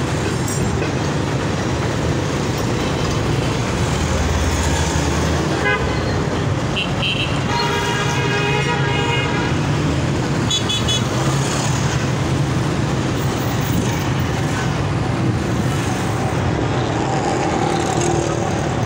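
Steady engine and road noise of riding through dense traffic, with vehicle horns tooting: short beeps about six and seven seconds in, a longer horn blast around eight to nine seconds, and a brief toot near eleven seconds.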